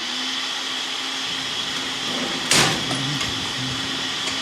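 A Ninja countertop blender running steadily, a constant motor hum with a high whine over it, with one sharp clatter about two and a half seconds in.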